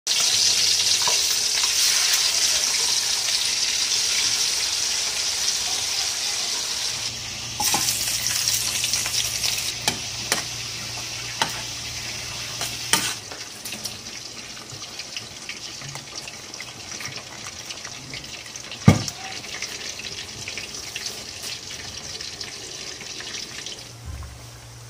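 Hot oil sizzling steadily as pork belly deep-fries in a wok, loudest for the first several seconds. Partway through, a spoon clicks and scrapes against a frying pan while stirring garlic in butter, with one sharp knock about three quarters of the way in.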